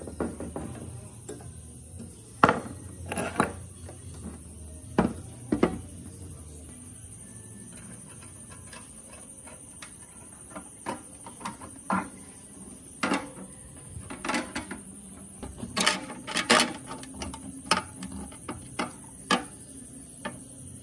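Irregular clicks, taps and light metallic clatter as small metal parts and a sheet-steel machine casing are handled and screwed together by hand.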